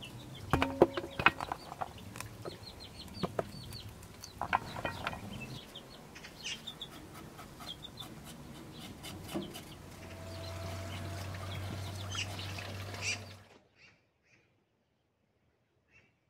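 Chickens clucking, with scattered sharp clicks and scratches. A low steady hum joins about ten seconds in, and the sound cuts off abruptly about three seconds before the end, leaving near silence.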